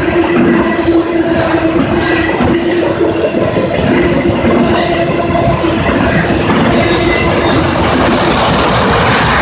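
CSX autorack freight cars rolling past at speed: a loud, steady rush of steel wheels on rail with a constant hum-like tone and occasional clicks.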